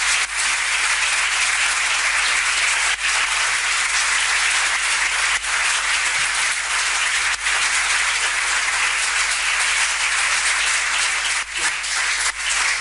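Audience applauding steadily: a long round of applause at the close of a lecture.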